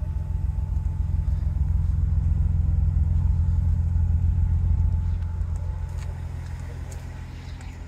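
Supercharged 1998 BMW M Roadster's straight-six running at a steady idle through its aftermarket exhaust, a deep low rumble. It fades somewhat from about five seconds in.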